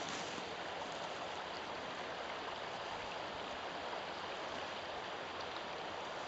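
Shallow river running over stones and gravel: a steady, even rush of flowing water.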